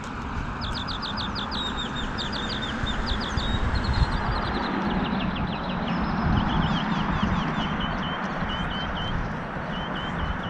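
A songbird singing a long run of quick, repeated chirps, switching to a new repeated phrase every second or two, over a steady rushing background noise.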